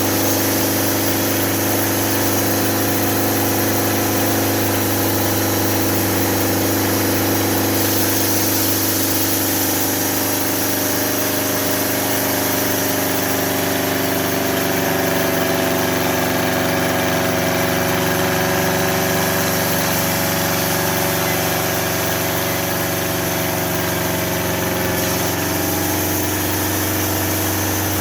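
Homemade sawmill with a 2-inch blade running steadily, its motor holding an even drone with a slight wavering in pitch partway through; it is running slower than normal.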